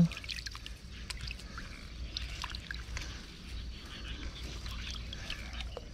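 Faint light splashing and lapping of lake water where freshly released tilapia are swimming, with scattered small ticks over a low steady rumble.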